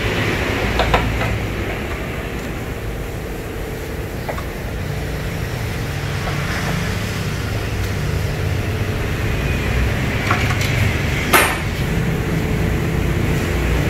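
Hand tools clinking and knocking against the metal parts of a scooter being stripped down, a few scattered clicks and one sharp metal clack near the end, over a steady low background rumble.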